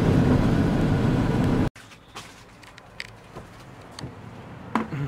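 Steady road and engine noise inside a moving car, heard through an open side window, cutting off abruptly about a second and a half in. Then quieter street background with a few light clicks and a sharper knock near the end as the car door stands open.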